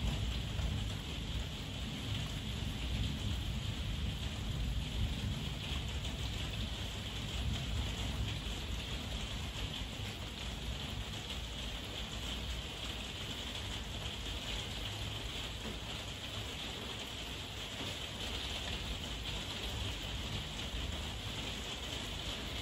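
Heavy rain falling steadily, with a low rumble of thunder dying away over the first several seconds.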